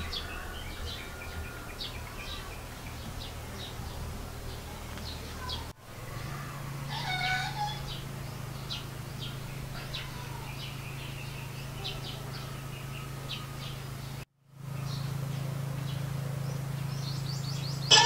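Birds chirping in short, high, repeated notes, with a single animal call of about a second some seven seconds in, over a steady low hum. The sound drops out briefly twice, at about six and fourteen seconds.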